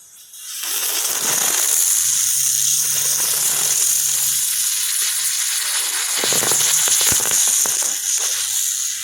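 Ground bloom flower fireworks (King of Ground Bloom with crackles) igniting about half a second in and spinning with a loud, steady hiss. From about six seconds in, sharp crackles break out and grow denser toward the end.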